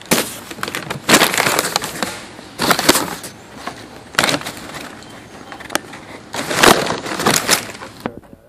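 Crackling, rustling handling noise from a cardboard Chicken McNuggets box held close to the phone's microphone, coming in several loud bursts and stopping abruptly about eight seconds in.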